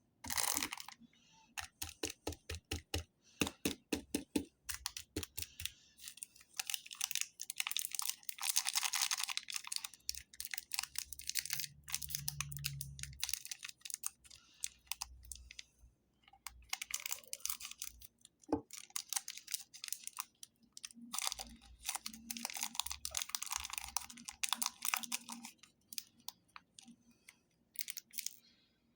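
Plastic candy wrappers crinkling and tearing in rapid runs of sharp crackles and clicks, coming in bursts with short pauses between.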